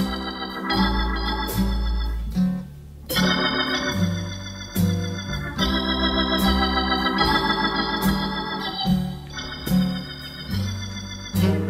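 Instrumental background music: sustained organ-like keyboard chords over a bass line, changing every half second or so, with a brief dip about two and a half seconds in.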